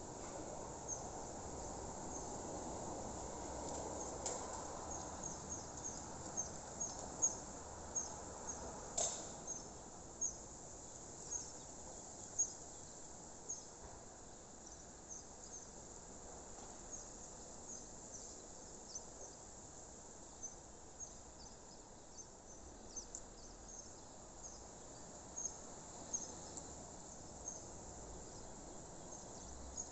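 Countryside ambience: short, high-pitched chirps repeating irregularly, about one or two a second, over a soft low hiss, with one brief click partway through.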